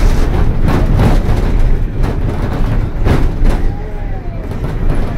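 Otokar Vectio C midibus driving, heard from on board: a loud, steady low engine and road rumble, with a few knocks and rattles from the body as it goes over bumps.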